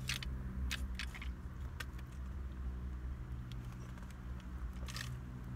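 Steady low hum of a car idling, heard inside the cabin, with a few light clicks and rustles as a large fountain-drink cup is handled and sipped from.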